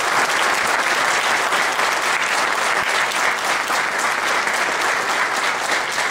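Audience applauding steadily, many hands clapping at once, in response to a speaker's remarks.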